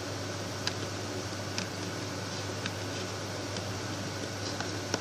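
Steady low hum and hiss of room noise, with faint light clicks about once a second.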